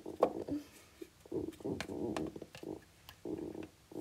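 Plastic toy figures being handled and moved about, with scattered light clicks and taps, under a soft, low murmur of voice.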